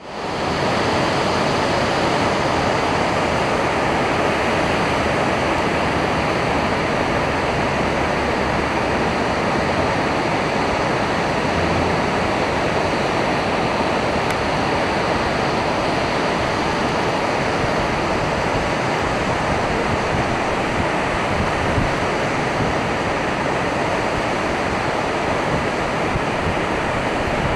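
Water pouring over a low-head dam spillway and churning at its foot: a steady, loud rush that fades in at the very start and then holds level.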